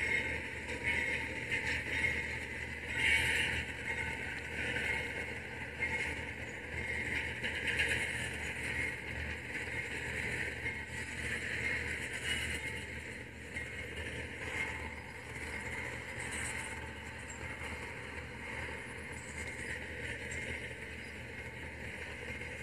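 Freight train of double-stack container cars rolling past, a steady rumble and hiss of steel wheels on rail that grows gradually quieter.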